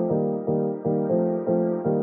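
Background music: a piano-like keyboard playing repeated chords in a steady rhythm, about three a second.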